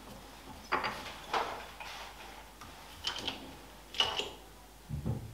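Metal lathe tailstock being set up against the workpiece with its live centre: a handful of separate sharp metallic clicks and clacks from its levers and handwheel, a few with a short ringing tone, and a duller knock near the end.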